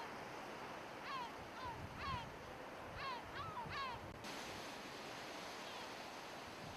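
Steady sea surf and wind noise, with a run of about eight short bird calls, each falling in pitch, over the first four seconds. About four seconds in the background noise changes abruptly to a plainer, steady wash of surf and wind.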